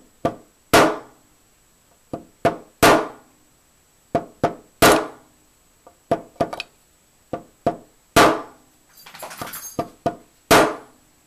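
Small hammer tapping a punch to drive a pin into an AR-15 lower receiver: five sharp, ringing strikes about two seconds apart, each led by one or two lighter taps. A short rustle comes a little before the last strike.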